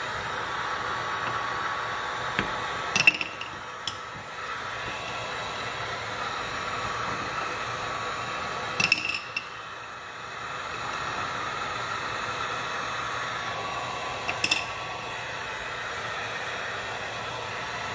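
Handheld electric heat gun running steadily, blowing hot air onto a granite backsplash joint to soften what holds it. Three brief clusters of sharp clicks, about 3, 9 and 14.5 seconds in, are the loudest sounds.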